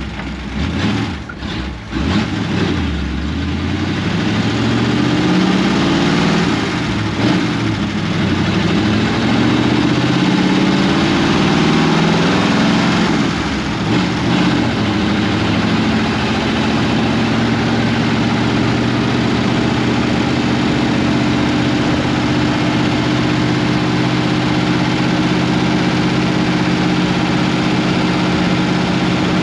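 Ford 59AB flathead V8 running through straight pipes, heard from inside the cab while driving. The revs climb and drop back at gear changes in the first half, then hold steady at cruise.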